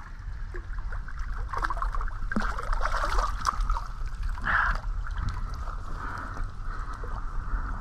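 Creek water splashing and trickling as a hooked freshwater drum (sheephead) is lifted and handled at the surface, with a few louder splashes between about two and five seconds in.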